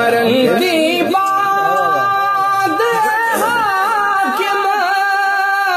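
Male voice singing a Punjabi naat unaccompanied, drawing out long held notes with a wavering vibrato and ornamental turns between the lyric lines.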